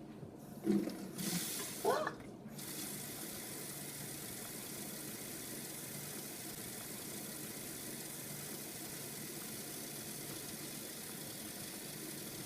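Water tap running steadily, filling a plastic water bottle, starting about two and a half seconds in after a few brief knocks and a short rising squeak.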